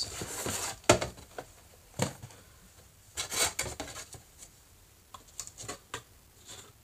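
Small cardboard boxes being handled and set down on a tabletop: sharp knocks about one and two seconds in, a stretch of papery rustling, then a few light taps.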